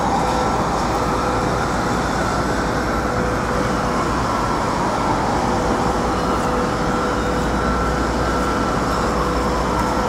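Steady city traffic noise, with a constant hum and a slowly dipping and rising engine pitch.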